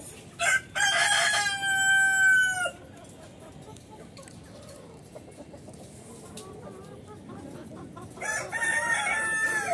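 Rooster crowing twice: a long crow about half a second in, with a held final note that drops off, and another crow near the end.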